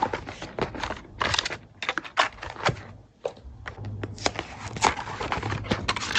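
Handling noise: an irregular run of crackles, taps and rustles, as small cardboard boxes and packaging are moved about by hand.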